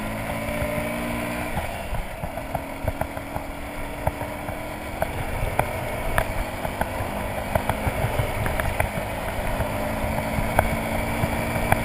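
Motorcycle engine running at low, steady revs while riding on a gravel road, its note fading in and out, with tyre rumble and wind buffeting on the microphone. Frequent sharp clicks and ticks from gravel and the bike rattling over the rough surface.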